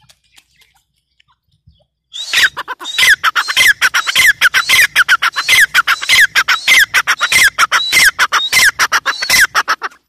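Grey francolin calling: a loud, rapid, unbroken series of harsh repeated notes, each with a falling whistle. It starts about two seconds in and stops just before the end.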